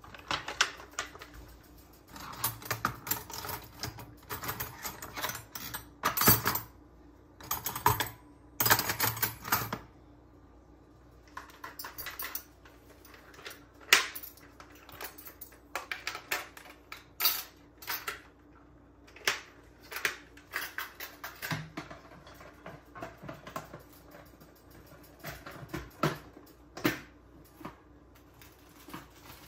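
Plastic food containers and bags handled on a kitchen counter: an irregular run of clicks, taps and rustles, with the sharpest click about halfway through.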